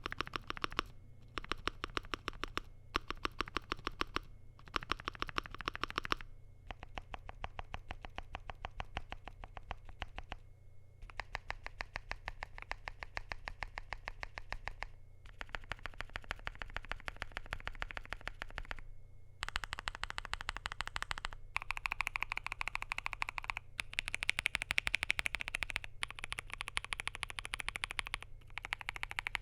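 Fast typing on a Zuoya LMK81 mechanical keyboard with lubed, filmed Vertex V One switches, a polycarbonate plate and AKKO MDA keycaps. The keystrokes come in dense runs broken by short pauses, and the clicks sound brighter from about two-thirds of the way through.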